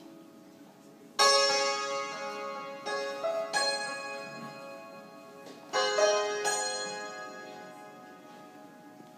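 Persian santoor struck with light hammers, playing sparse phrases. There is a loud struck chord about a second in, a short run of notes around three to four seconds, and another group near six seconds, each left to ring and fade out with its bright overtones.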